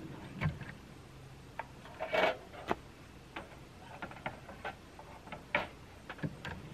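Scattered clicks and light knocks of camping gear being handled and set down at a pickup's tailgate while packing up, with a louder, longer clatter about two seconds in.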